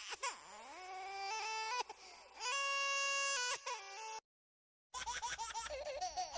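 Comic crying sound effect: a long wail that climbs and holds its pitch in steps, with a sobbing break partway through. It cuts off about four seconds in, and after a short silence a baby's giggling laugh starts in quick bursts.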